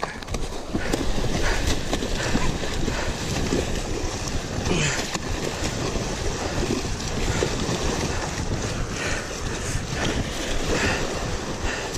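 Waves breaking against rocks just below, mixed with wind buffeting the microphone: a steady rushing noise.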